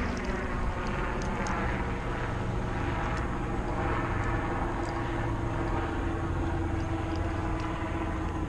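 Steady engine drone with several even tones, holding level throughout, with a few faint light clicks of metal hooks being handled with forceps.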